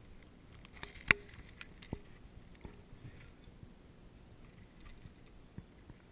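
A few sharp clicks and knocks over faint outdoor background noise, the loudest about a second in with a brief ringing tone, then lighter ones near two, near three and near six seconds.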